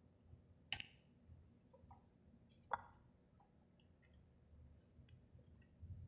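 Near silence: room tone with two short faint clicks, one about a second in and one near the middle, and a few fainter ticks later.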